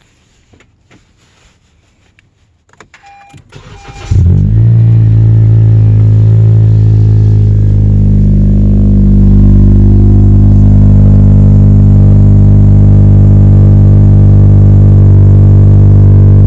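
A car engine starts about four seconds in and then runs steadily at idle, loud and droning, through a freshly installed Invidia N1 aftermarket exhaust; before it, a couple of faint clicks and two short chime tones.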